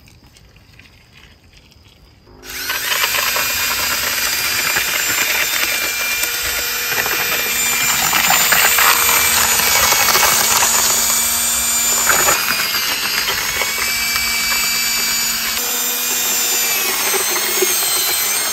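Cordless drill driving a paddle mixer in a plastic bucket, mixing lime plaster with water. It starts about two seconds in and runs steadily with a whine that shifts slightly in pitch.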